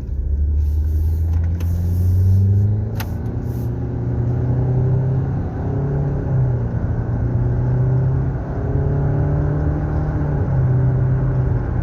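Nissan car engine accelerating, heard from inside the cabin: the engine note climbs over the first few seconds, then holds fairly steady with small shifts in pitch. The owner complains the car sounds like a go-kart since its transmission was replaced.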